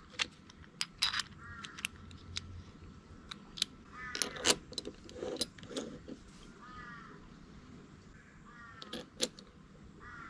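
Small metal parts clinking and clicking on a wooden bench: thin metal bus bar links being slid over the threaded studs of terminal blocks and set down, in scattered light taps with a few louder knocks midway.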